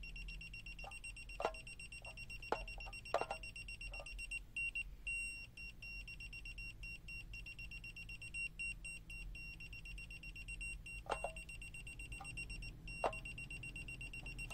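Non-contact voltage detector of a BSIDE X1 multimeter sounding a high-pitched alarm tone, broken briefly about four to five seconds in, with a few light clicks of the meter tip against the socket. The tone signals that the detector is sensing AC mains voltage at the live hole.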